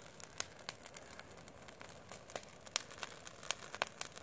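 Brush-pile fire of twigs and branches crackling, with irregular sharp pops.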